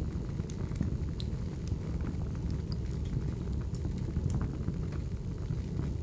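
Fireplace fire burning: a steady low rumble of flames with scattered sharp crackles and pops.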